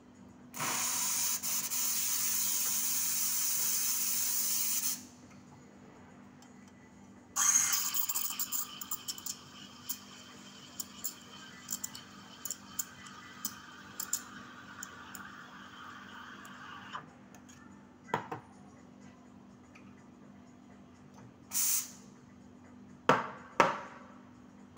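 Espresso machine steam wand: a steady hiss of steam for about four seconds, then milk being steamed in a stainless steel pitcher, a hiss with crackling ticks as air is drawn in that fades away. Near the end come a short burst of steam and sharp knocks as the pitcher is tapped on the counter.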